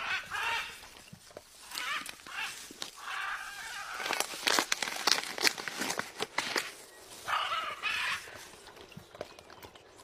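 Blue-and-yellow macaw giving several short, harsh rasping calls, with a dense run of sharp clicks in the middle, about four to six seconds in.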